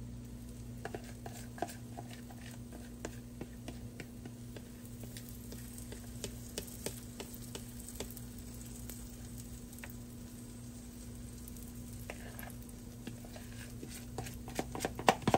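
Pancake batter sizzling in melted butter on an electric griddle: faint, scattered crackles and pops over a steady low hum. A few louder clicks come near the end.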